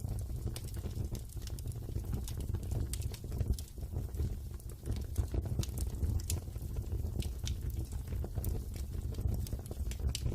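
Wood fire burning in a fireplace: irregular sharp crackles and pops of burning logs over a steady low rumble of the flames.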